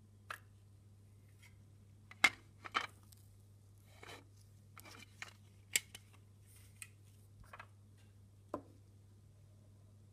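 Scattered small clicks and knocks, irregular, the sharpest about two seconds in, over a steady low hum.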